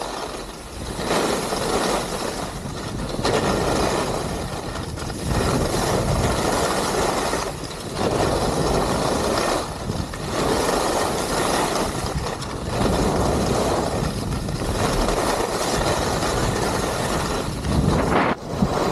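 Skis scraping and hissing over snow through a run of turns, the loud hiss swelling and dropping every second or two.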